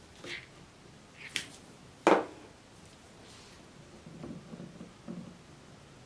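Handling noise: a few short sharp clicks, the loudest about two seconds in, then softer rustling and light knocks.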